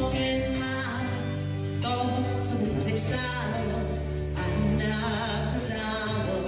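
Band music playing a song, with held, wavering melody lines over a steady bass.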